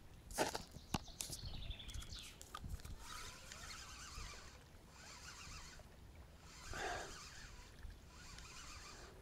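Hooked bream thrashing and splashing at the water's surface near the bank as it is brought in on a feeder rod. There are a couple of sharp splashes about half a second and a second in, then lighter sloshing.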